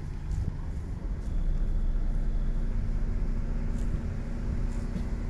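Car running at low speed, heard from inside the cabin: steady engine and road rumble that gets slightly louder about a second in, when a steady hum sets in.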